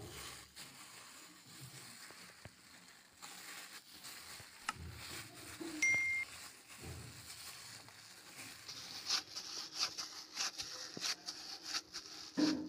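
A plastic-bag-covered hand squeezing and kneading soft bread dough in a stainless steel bowl: soft squishing and plastic crinkling with scattered light clicks, and a brief ding about six seconds in. The crinkling comes quicker and denser over the last few seconds.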